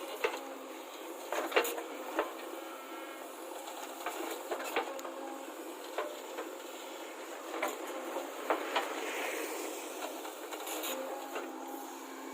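JCB backhoe loader working: a steady engine drone with scattered sharp knocks and clanks.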